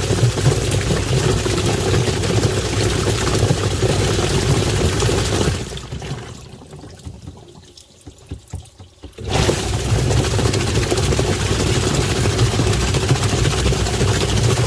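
Washing machine motor running with water churning in the tub; the motor winds down about five and a half seconds in, pauses for a few seconds, then starts up again.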